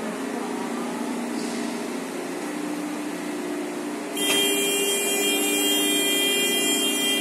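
Steady drone of factory machinery. About four seconds in, a louder machine noise with several high, steady whines cuts in abruptly.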